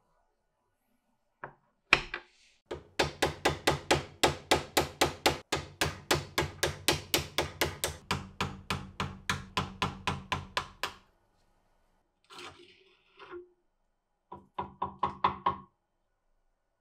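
Hammer blows on a metal punch set against the wooden handle's ferrule of an antique adjustable monkey wrench held in a vise, driving the handle off its tang. A steady run of sharp strikes at about four a second lasts some eight seconds, and near the end comes a quicker burst of lighter taps.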